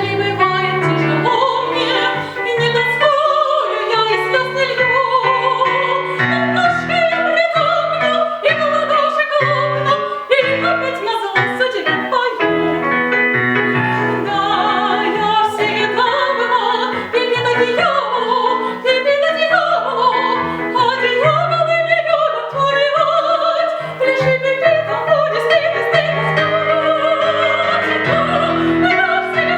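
A woman singing an operetta song in classical style with vibrato, accompanied by piano.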